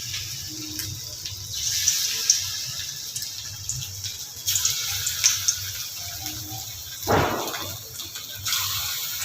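Chicken pakoras frying in hot oil, a steady sizzle that swells in fresh bursts several times as more battered pieces go into the oil. A short louder rush of noise comes about seven seconds in.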